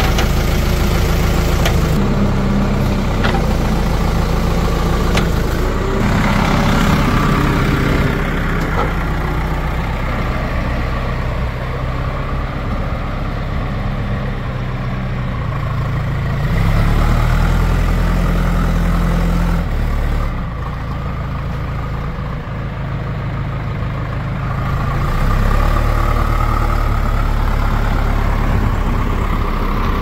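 Heavy diesel machinery engine running, its speed and level rising and falling several times.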